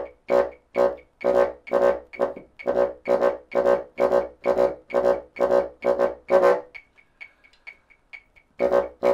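Bassoon playing a single-tonguing exercise in its low register: short, sharply tongued notes about two a second. The notes break off about seven seconds in and start again near the end.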